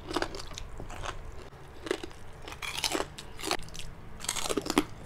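Biting and chewing crispy deep-fried pork rind (chicharon bagnet), with a series of short, sharp crunches.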